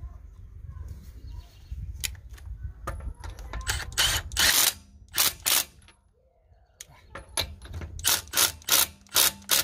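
Milwaukee M18 Fuel One-Key Gen 3 cordless impact driver hammering on a car's lug nut in short trigger bursts: a longer burst about four seconds in, then a quick run of short bursts near the end.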